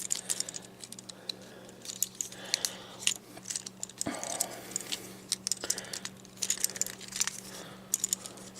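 Plastic parts of a Transformers action figure clicking and clacking as its joints are rotated and pieces snapped into place by hand, in many irregular sharp clicks.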